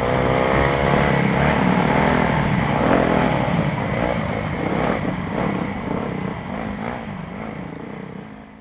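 A 2013 Yamaha YZ250F's single-cylinder four-stroke engine on a trail ride, heard from a helmet camera, rising and falling in pitch with the throttle. The sound fades out over the last few seconds.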